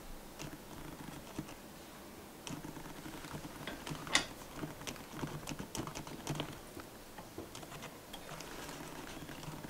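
Faint, irregular clicks and taps, with one sharper click about four seconds in: handling noise from a condenser microphone being fitted into its shock mount on a boom arm.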